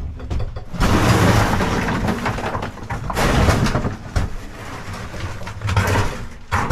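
Broken concrete rubble tipped out of a Jackson steel-tray wheelbarrow, sliding and clattering onto the plywood floor of an enclosed trailer. A long rush of rattling rock starts about a second in, followed by smaller clatters and knocks.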